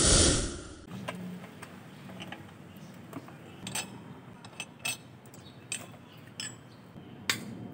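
A whoosh sound effect for about the first second, then scattered light metallic clicks and clinks, a few to the second at irregular spacing, over a low steady hum.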